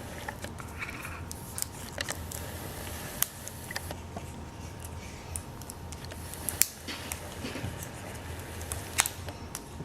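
Scattered light clicks and taps from hands working on laptop display parts as the screen's video cable and its tape are separated, over a steady low hum.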